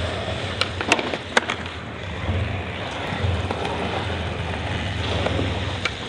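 Skateboard wheels rolling on smooth concrete, a steady low rumble. Several sharp clacks come in the first second and a half.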